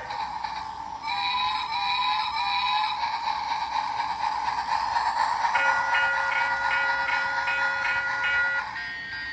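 Battery-operated toy train running on its plastic track: a steady electric whir with the set's electronic sounds over it, a few short stepped notes early on, then a held electronic chord from about halfway through that stops about a second before the end.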